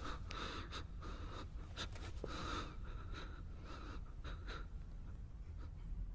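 Quiet, tense horror-film soundtrack: a low steady rumble under faint scattered scratching and rustling sounds.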